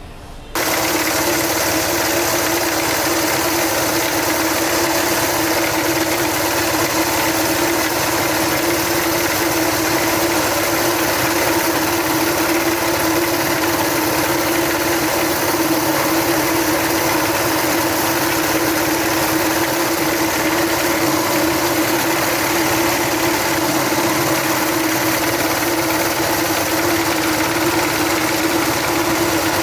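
Electric meat grinder switched on about half a second in and running steadily, its motor giving a constant whirring hum.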